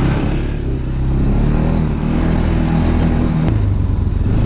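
ATV engine running under way on a snowy trail, a steady low engine note; about three and a half seconds in there is a click and the engine note drops suddenly.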